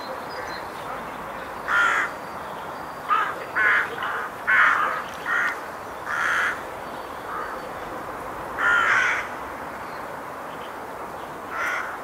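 Rooks cawing: about ten short caws at irregular intervals, some in quick succession, over a steady background hiss.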